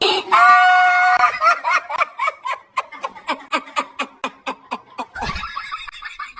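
Comic sound-effect track: a held squawk-like note, then a fast run of short cackling calls, about four a second. Near the end a low thump and a music bed come in.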